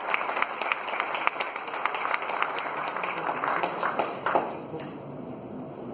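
Audience applauding with many scattered hand claps, dying away about four and a half seconds in.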